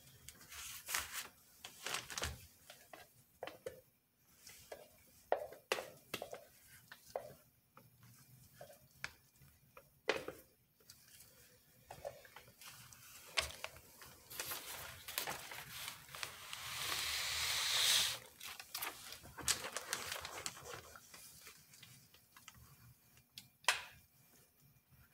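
Scattered knocks, taps and scrapes from a plastic soap-pouring jug and utensils being handled on a work bench. A hiss-like noise swells for a few seconds and cuts off abruptly about three-quarters through.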